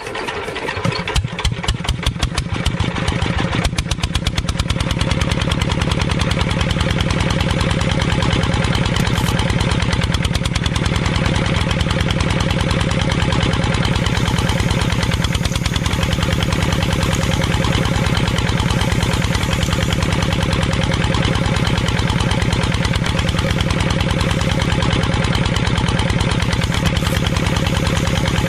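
Small single-cylinder engine starting, its separate firing beats quickening over the first four seconds or so, then running steadily at a fast chug.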